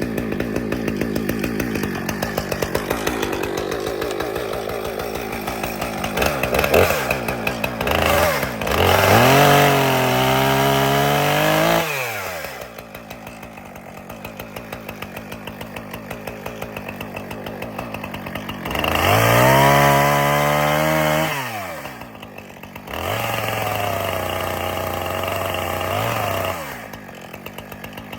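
Husqvarna two-stroke chainsaw bucking a fallen storm-damaged tree: it runs, revs up hard to full throttle twice, and drops back to a pulsing idle between cuts.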